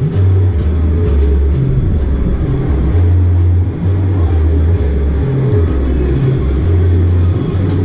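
Loud music with a deep bass line: low sustained bass notes stepping between a few pitches about every half second.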